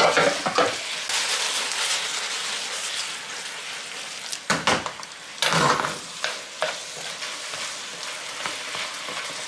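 Ramen noodles, beef and vegetables in jjajang sauce sizzling in a frying pan on a portable gas burner as they are stir-fried with chopsticks. A few sharp knocks come about four and a half to six seconds in.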